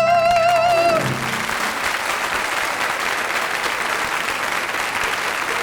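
A singer's long final note with vibrato, over the accompaniment, ends about a second in, and the audience breaks into steady applause.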